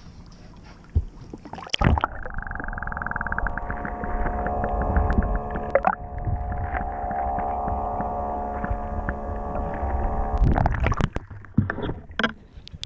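A splash as the microphone goes under the sea surface about two seconds in. Then the boat's Yamaha outboard motor is heard muffled through the water: a steady hum made of many held tones. Splashing and a return to open air follow as it comes back out near the end.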